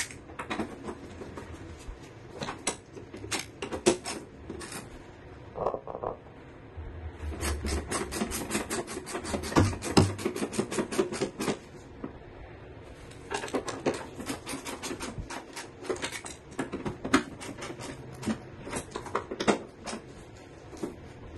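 Hand ratchet on an extension clicking rapidly as the 17 mm bolts of an engine side mount are run down, in two long runs of clicks with scattered metal knocks between.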